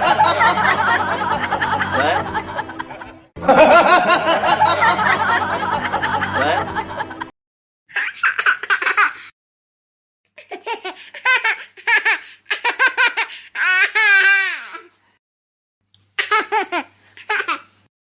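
A run of separate laughter clips: two long stretches of hearty, dense laughing, then after a short silence a high-pitched child's laughter in short bursts, with gaps between them.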